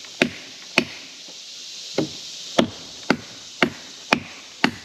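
Hand tool chopping into the wood of a fallen tree's limb: sharp chopping strikes, two, then after a pause of about a second six more at about two a second.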